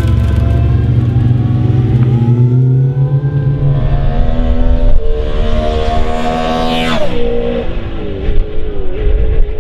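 BMW M3 E92 race car's V8 engine, running at low revs at first, then revving up with the pitch climbing steadily over several seconds. About seven seconds in the pitch drops sharply, and a lower, wavering engine note follows.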